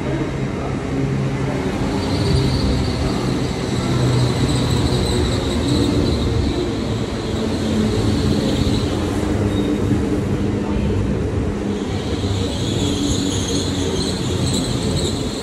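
Great Western Railway passenger train moving along the platform close by, with a steady low rumble and hum. A thin high squeal from the wheels or brakes comes in about two seconds in, fades out around the middle and returns, higher and stronger, near the end.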